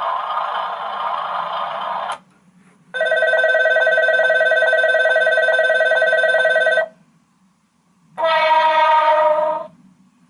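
An electric bell ringing steadily for about four seconds, starting about three seconds in. After a short pause a second, shorter tone sounds for about a second and a half. Before the bell, a noisy sound stops about two seconds in.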